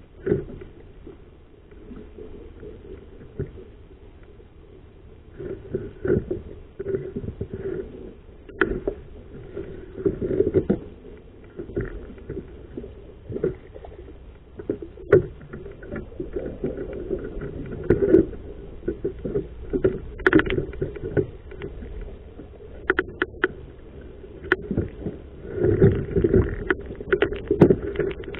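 Knocks and scrapes of fishing gear in a small boat over water sloshing against the hull, with splashing as a hooked fish is reeled to the boatside. The sounds come as irregular bumps and clicks, louder in spells rather than steady.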